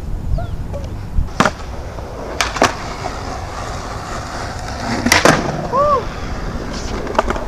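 Skateboard wheels rolling on concrete with a steady rumble, broken by several sharp clacks of the board striking the ground: one about a second and a half in, a pair near the middle and the loudest pair about five seconds in. A couple of short rising-and-falling chirps follow the loudest clacks.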